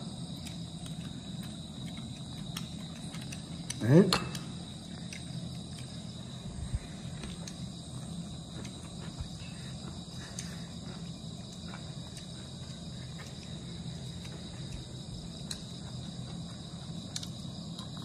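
Crickets chirring steadily in the background, with faint scattered clicks of bamboo chopsticks and chewing as a man eats.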